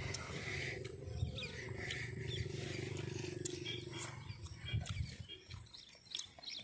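A low, drawn-out growling call lasting about three seconds, with a few faint clicks around it.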